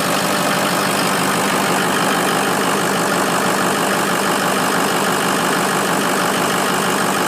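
2005 Ford F-350's Power Stroke V8 diesel engine idling steadily, heard from outside the truck.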